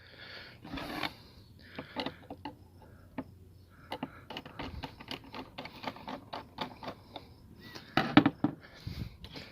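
A quick, irregular run of small clicks and taps as hard parts are handled, with a few louder knocks near the end.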